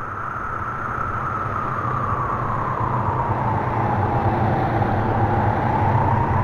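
Horror sound effect: a rushing noise with a hollow tone that sinks slowly in pitch over a low hum, growing steadily louder.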